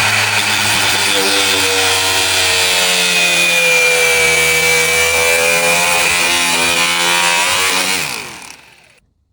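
Mini angle grinder running at speed with a steady whine and rasp as its disc cuts into craft paper. It is switched off and winds down about eight seconds in.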